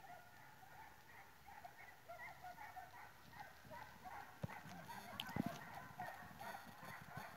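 Faint, distant hunting dogs giving tongue in the forest, a steady scatter of short yelps and bays from a pack on a boar's trail, with a couple of knocks about halfway through.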